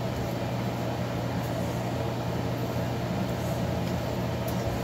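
A steady low mechanical hum from a running motor or fan, with a couple of faint ticks.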